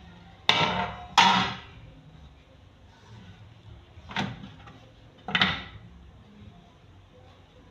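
Wide round metal pan clanking against a hard work table: four knocks, each with a short ring. Two loud ones come close together, then two more a few seconds later.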